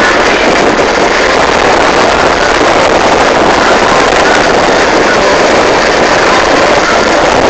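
Loud, steady rushing noise of a vehicle on the move, with no distinct events.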